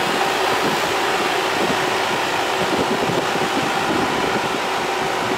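Menzi Muck A71 walking excavator's diesel engine running steadily as the machine moves off along the track.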